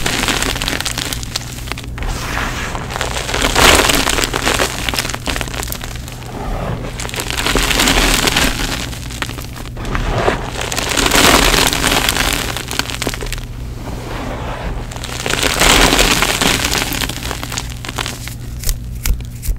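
Hands pressing into, scooping and crumbling a heap of powdered gym chalk: a gritty, crunchy crackle that swells every three or four seconds as each handful is squeezed and let fall. A steady low hum runs underneath.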